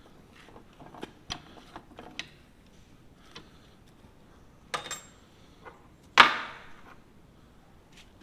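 Metal parts and hand tools being handled at a workbench vise: a few light clicks and knocks in the first couple of seconds, a short clatter a little before five seconds, then one loud clank with a short ringing decay about six seconds in.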